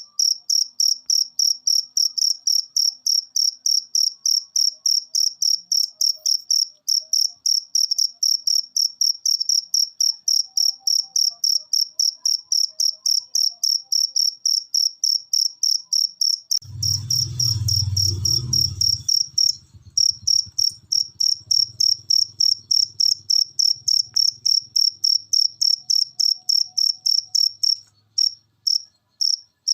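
A cricket chirping steadily in short high-pitched pulses, about three to four a second. About two-thirds of the way in, a low rumble sounds under it for a couple of seconds, then fades to a faint hum, and near the end the chirps become irregular with gaps.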